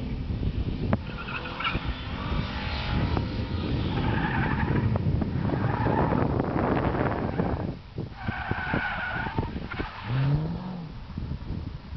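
A car's tyres squeal in several bursts as it slides through tight autocross turns, over the steady rumble of its running engine.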